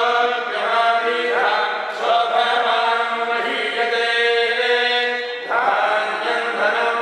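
Men's voices chanting Sanskrit mantras in long, held phrases at a fairly level pitch, broken by short pauses for breath.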